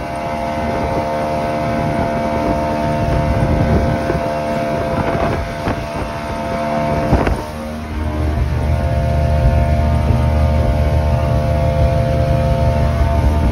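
1993 Johnson 200 HP OceanRunner V6 two-stroke outboard running steadily at speed under load, with wind and water rushing past. A deeper hum strengthens about eight seconds in, and there are a couple of knocks near the middle.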